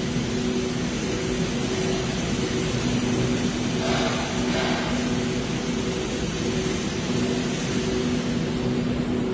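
A motor or engine running steadily with a constant hum.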